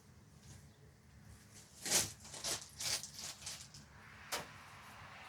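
Several short rustling scrapes, about four over a couple of seconds, of hands digging potatoes out of loose soil.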